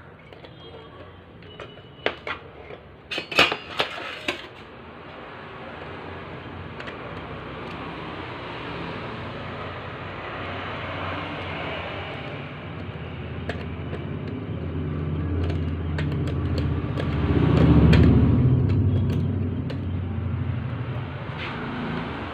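Sharp clicks and metallic clinks as parts of a copier fuser unit are fitted by hand, then a low rumble that builds slowly, peaks about three-quarters of the way through and eases off.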